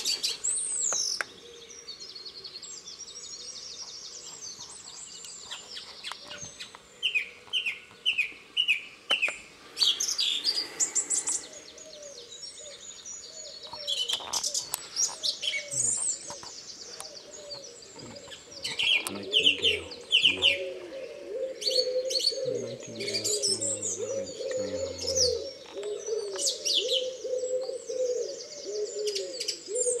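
Dawn chorus of songbirds, led by a nightingale singing loud phrases of rapid trills, whistles and runs of repeated notes. From about halfway, a low, continuous cooing of pigeons runs beneath the song.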